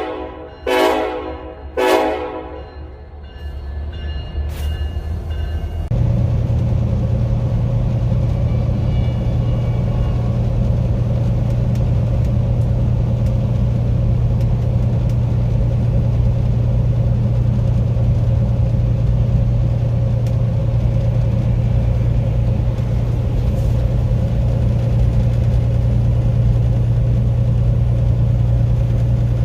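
Union Pacific diesel locomotive horn sounding a run of short blasts about a second apart, then the passing train: a loud, steady, low diesel drone that comes in sharply about six seconds in and holds.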